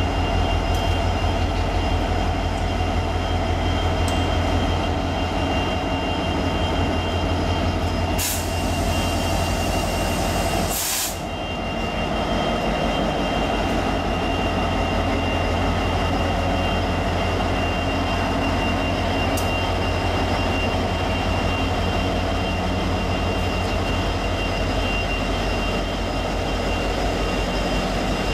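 Norfolk Southern diesel locomotives, an EMD SD70M-2 leading and a GE Dash 9-40CW behind, passing close by at the head of a freight train. Their engines run with a steady deep rumble, under a steady high-pitched tone.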